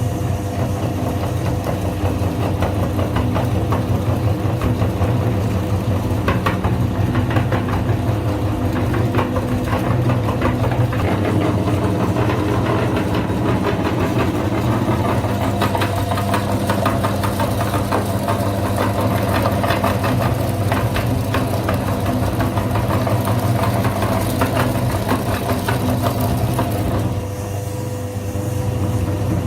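Electric kitchen grinder's motor running steadily at speed, with rapid crackling and rattling as its contents are crushed. The motor note drops briefly near the end.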